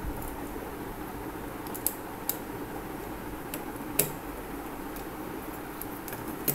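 Small screwdriver clicking and tapping against the screws and plastic body of a lamp holder being wired: a few sharp ticks, the loudest about four seconds in, over a steady background hiss.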